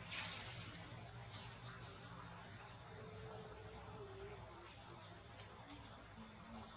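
Steady, high-pitched drone of insects in the tree canopy, one unbroken thin tone.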